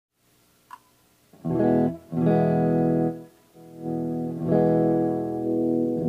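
1996 Japanese-made Grover Jackson electric guitar playing four chords that ring out, starting about a second and a half in, the third chord softer than the others. A faint click comes before the first chord.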